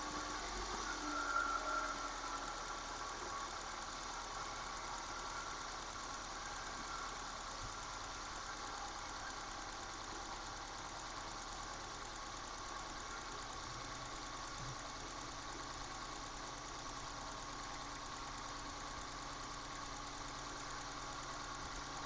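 Car engine idling steadily, with a faint steady whine above it.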